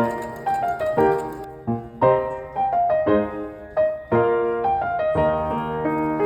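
Background piano music: a gentle melody of single notes and chords, each note struck and fading.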